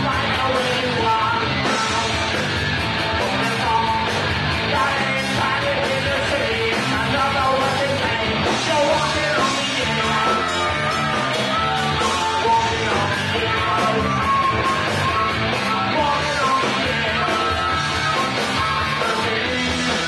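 Live rock band playing: electric guitars, bass and drums, with two vocalists singing into microphones over them.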